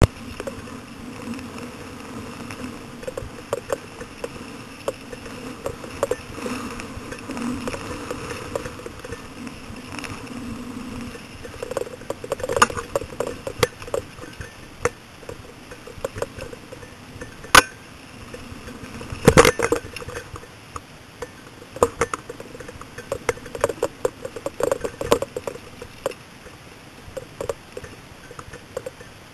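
Mountain bike rolling over a dirt trail: a steady tyre and wind noise with frequent clicks and rattles from the bike over bumps, and a couple of sharp clanks from bigger jolts around the middle.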